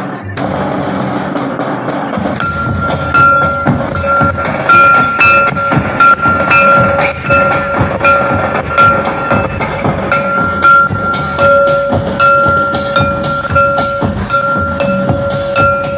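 Folk drums beaten in a quick, busy dance rhythm. From about two seconds in, two steady held high tones sound over the drumming, breaking off briefly now and then.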